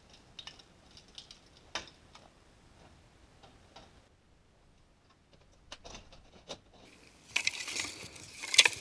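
Dry twigs and brush being handled and gathered into bundles: scattered small snaps and clicks, then louder rustling and crackling from about seven seconds in.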